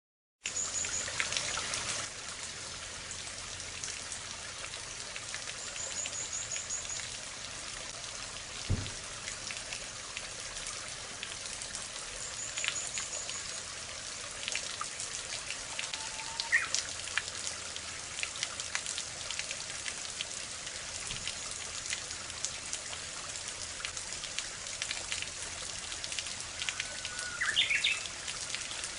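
Water falling from a bamboo spout (kakehi) and splashing steadily, with wild birds calling: a short high trill heard three times and a couple of lower whistled calls near the middle and end. A single low thump about nine seconds in.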